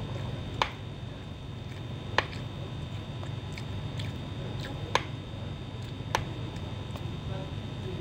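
Metal spoon clicking against a plastic food container while eating rice: four sharp clicks spread over several seconds, over a steady low hum.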